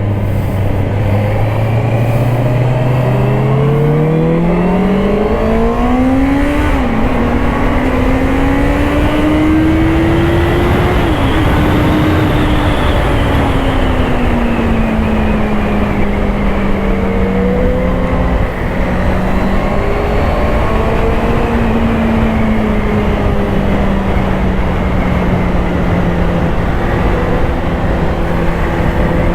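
Honda CBR650R's inline-four engine under way: the revs climb, drop sharply at an upshift about seven seconds in, climb again and shift again about eleven seconds in, then ease off and hold steady. Wind rushes over the microphone throughout.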